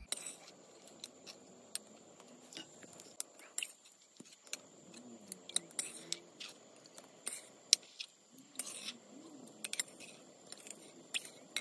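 A metal ladle clinking and scraping against a metal kadhai as boiled chicken pieces are scooped out of the broth: scattered light taps and clicks, a few a second.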